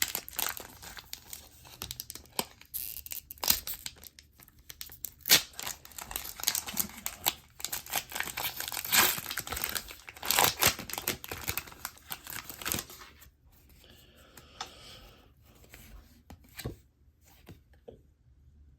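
Foil wrapper of a Pokémon TCG booster pack being torn open and crinkled by hand, a dense run of crackling and ripping. After about thirteen seconds it drops to faint rustling.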